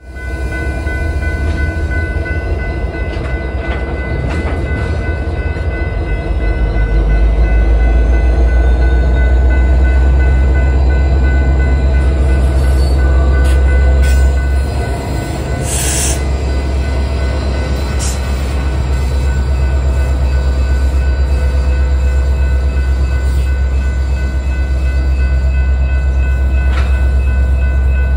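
BNSF diesel locomotives passing close by with a deep, steady engine rumble, which grows louder a few seconds in. A grade-crossing signal bell rings steadily throughout, and a short, sharp burst of noise comes near the middle.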